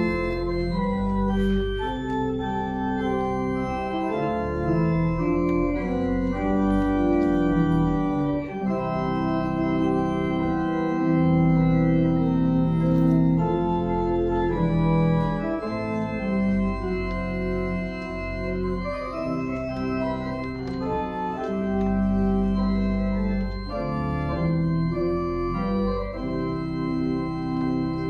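Church organ playing slow music in held chords over deep sustained bass notes.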